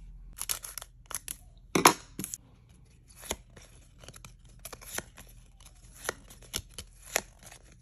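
Stiff foil trading cards slid off a stack one at a time by hand: an irregular run of short flicks and scraping slides, the loudest a little under two seconds in.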